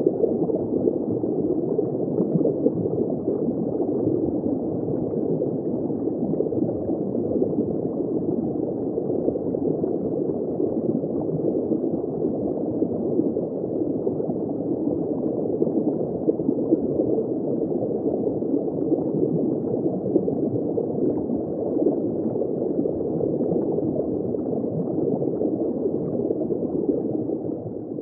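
Steady, muffled bubbling and churning of water, as heard underwater, fading out at the very end.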